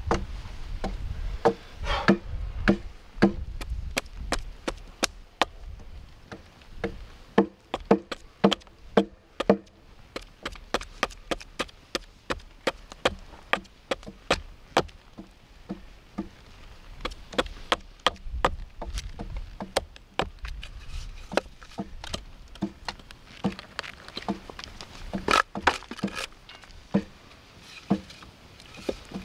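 Hatchet chopping a wooden ladle blank held upright on a stump chopping block: a run of sharp blade-into-wood chops, about two a second, as the blank is roughed out.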